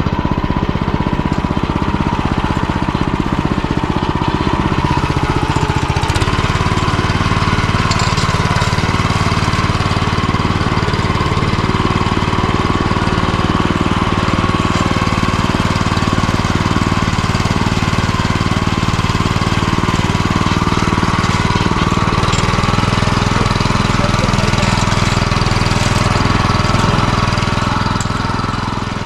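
An MTZ-09N walk-behind tractor's single-cylinder petrol engine running steadily while it drives along a grassy track, heard close up from the handlebars. Its note shifts about six seconds in.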